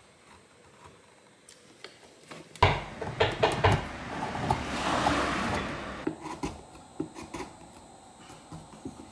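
Hand carving chisel paring a small block of wood: faint ticks at first, then from about two and a half seconds in a run of sharp knocks and crisp cutting clicks, with a longer scraping cut through the middle that eases off to light ticks near the end.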